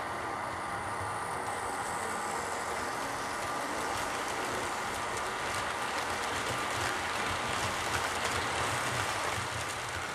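Märklin H0 model train of passenger coaches rolling past on the track, a steady rolling noise full of rapid fine clicks from the wheels on the rails.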